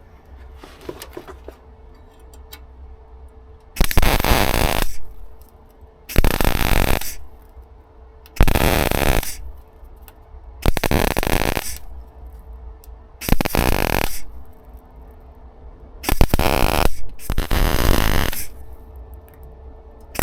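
Welder laying short bursts of weld on car body steel, about seven crackling runs of roughly a second each with pauses between, starting about four seconds in: tacking and stitching repair panels onto the rusted front outrigger of a Rover P6. A faint steady hum continues between the bursts.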